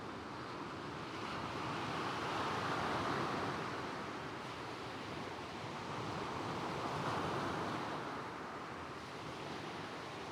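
Gentle waves breaking and washing across a stony shingle beach, the surf swelling twice, about three seconds in and again about seven seconds in.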